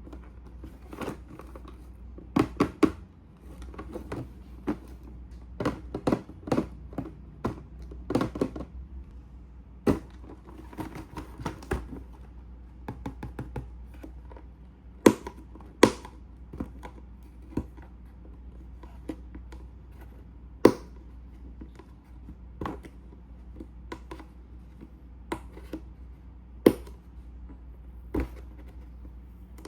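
Irregular clicks, taps and light knocks of plastic model-kit parts and packaging being handled, with a few sharper, louder clicks scattered through.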